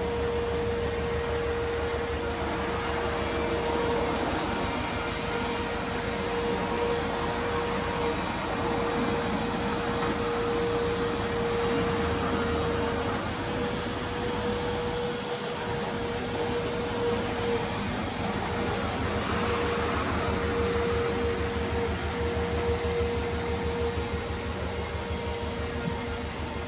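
Subaru Impreza WRX (GDA) turbocharged 2.0-litre flat-four idling steadily through an aftermarket Kakimoto muffler, an even low pulsing with a steady hum over it.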